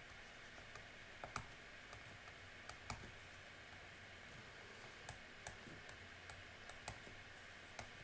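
Faint, irregular clicks and taps, about a dozen, over a low steady hiss, made while an equation is being written out.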